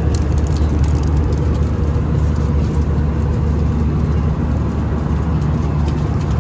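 Steady low rumble of an airliner's engines and airflow heard inside the passenger cabin in flight, with a few faint clicks and rustles near the start.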